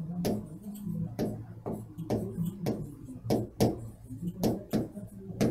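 Felt-tip marker writing on a whiteboard: a string of short scratching strokes, about two a second, over a low steady hum.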